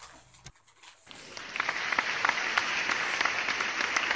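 Crowd applause, a canned sound effect, fading in about a second in and then going on steadily as a dense patter of claps.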